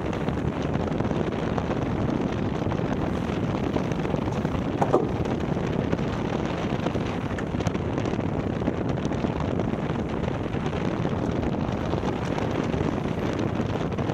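Wind buffeting the microphone and water rushing along the hull of a racing yacht under sail at speed, a steady loud noise. A brief knock about five seconds in.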